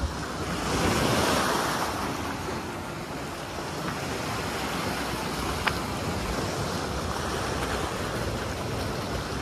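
Small sea waves washing in over a beach of rounded pebbles, swelling about a second in. A single sharp click comes a little past halfway.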